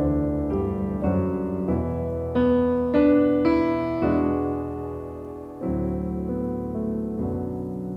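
Background music played on piano: slow notes and chords with a low bass line, a new chord struck about every second.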